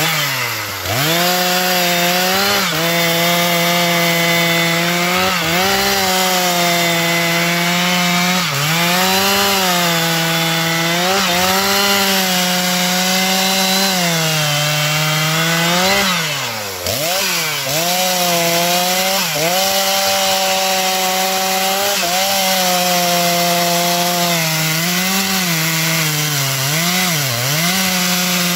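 Stihl MS 660 two-stroke chainsaw running at full throttle while cutting into a standing tree's trunk. The engine pitch holds high and repeatedly sags and recovers as the chain bogs under load, with the deepest dip about halfway through.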